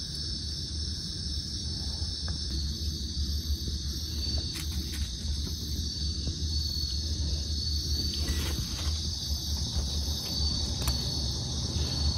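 Night insects, crickets, trilling in a steady high-pitched chorus, over a low steady rumble and a few faint ticks.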